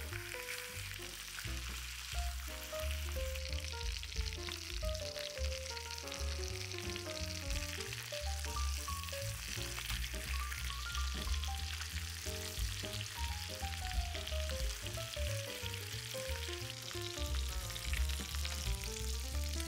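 Food sizzling steadily as it fries in fat in a pan, under background music with a melody and bass line.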